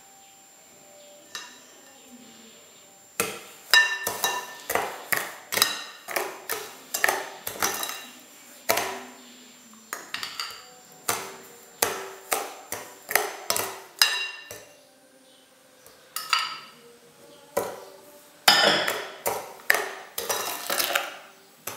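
Metal spoon knocking and scraping against ceramic bowls while egg yolks are spooned into a mixing bowl. The clinks are sharp and irregular and each rings briefly. They start about three seconds in, pause briefly past the middle and come thickest near the end.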